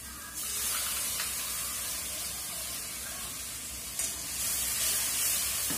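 Tomato paste sizzling as it hits hot oil and lightly fried onion in a steel wok. The hiss starts suddenly about a third of a second in, as a spoon stirs it through the pan, and swells again about four seconds in.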